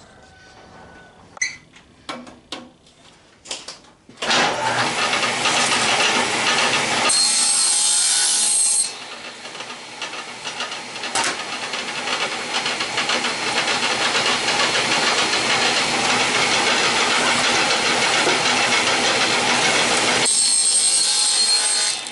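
A few knocks of handling, then a table saw switched on about four seconds in, running steadily as it cuts a thin sheet of 1/8-inch plywood. The sound drops off near the end.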